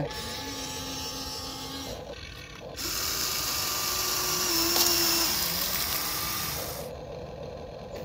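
A small motor whirring: a steady hum for the first two seconds, then a louder hiss with a faint whine from about three seconds in until about seven seconds.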